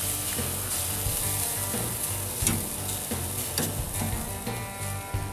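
Hamburger patties sizzling on a charcoal grill, with a metal spatula clicking and scraping against the grate a few times.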